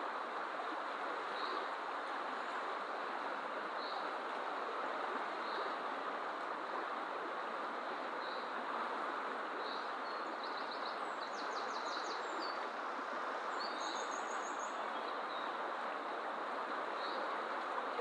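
A fast-flowing river rushing steadily over its bed. A bird gives a short high call about every two seconds, and rapid trilled songbird phrases come twice near the middle.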